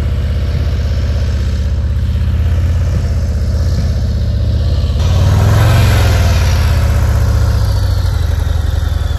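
A Harley-Davidson CVO Tri Glide trike's Milwaukee-Eight 117 V-twin running as the trike rolls past close by. It grows louder to a peak a little over halfway through, then eases off.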